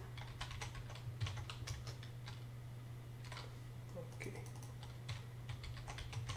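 Typing on a computer keyboard: irregular runs of key clicks with short pauses, as a search word is deleted and retyped. A steady low hum sits underneath.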